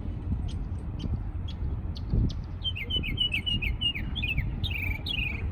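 A songbird singing. A few short, high chip notes come first, then from about halfway a quick run of downslurred whistled notes, ending in a fast falling series of notes. A steady low rumble of background noise runs underneath.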